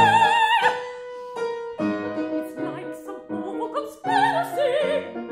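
Operatic soprano holding a high note with wide vibrato over repeated grand piano chords; the note cuts off about half a second in. The piano carries on, and her voice comes back in with short wavering phrases near the end.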